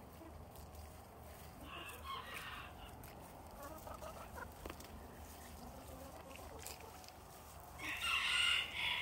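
Backyard chickens calling as they peck at food: a short call about two seconds in and a louder, longer call near the end.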